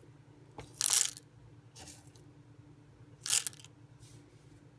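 Whole coffee beans poured into the open upper burr of a Breville Smart Grinder Pro, rattling onto the burr and housing in two short pours about two and a half seconds apart.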